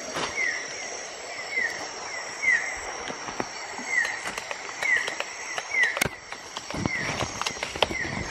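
Night rainforest ambience: a steady high insect drone with a short, high, downward chirping call repeated about twice a second. Leaves rustle and feet crunch in the undergrowth, more busily in the second half.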